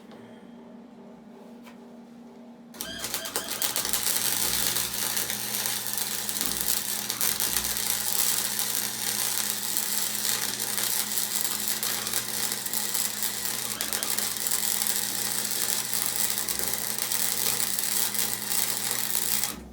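MIG (wire-feed) welder arc crackling steadily as a weld bead is laid, starting about three seconds in and stopping abruptly just before the end. Before the arc strikes, only a low steady hum is heard.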